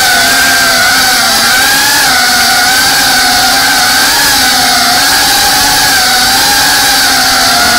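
FPV quadcopter's brushless motors and propellers whining steadily, the pitch wavering gently up and down as the throttle changes, heard up close from the camera mounted on the drone.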